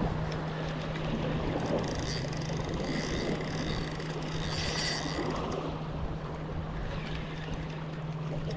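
Small waves washing and splashing against the granite boulders of a jetty, with a steady low hum underneath.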